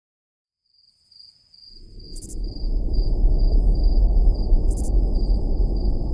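Night insects, likely crickets, chirping in a steady high pulse about three times a second over a loud low rumbling noise. Both fade in about a second in, with two brief hissing bursts partway through.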